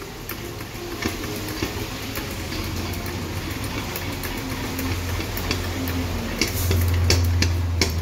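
Clicks and metallic rattles of a hydraulic floor jack's spring-loaded pump-handle socket being pushed down and springing back on its return springs. A low steady hum underneath grows louder about halfway through, with the clicks coming thicker near the end.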